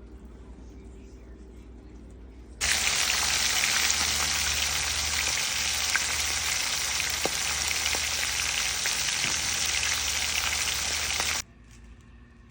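Food sizzling steadily in hot fat. The sizzle starts abruptly a couple of seconds in and cuts off suddenly about a second before the end, leaving a faint low hum.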